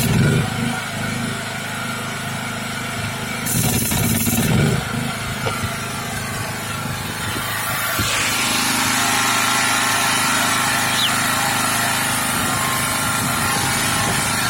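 Volkswagen T4's 2.4 naturally aspirated engine running steadily; about eight seconds in the sound changes to a smoother, steadier hiss.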